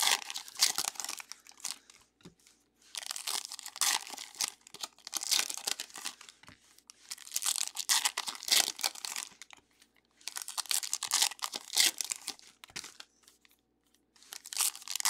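Foil baseball card pack wrappers being torn open and crinkled by hand, pack after pack, in bursts about two seconds long with short pauses between.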